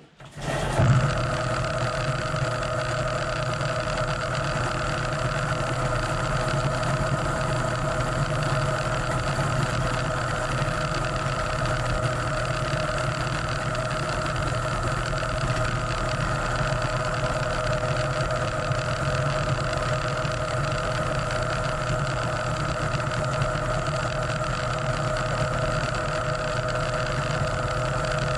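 Electric Eel Model C drum drain-cleaning machine switching on about a second in and running steadily, its motor and spinning cable drum giving a constant hum with a higher steady tone.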